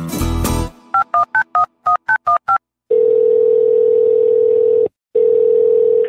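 A strummed acoustic guitar tune ends on a last chord, then a phone's touch-tone keypad beeps eight digits quickly. A long steady telephone tone follows, sounding twice with a short break: the line ringing while the caller waits for an answer.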